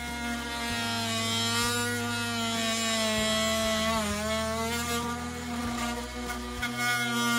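Cordless oscillating multi-tool cutting into a wooden window jamb: a steady buzzing whine whose pitch dips now and then as the blade bites into the wood.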